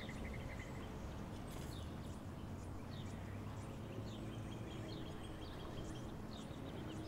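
Quiet outdoor ambience: small birds chirping here and there over a faint, steady low hum.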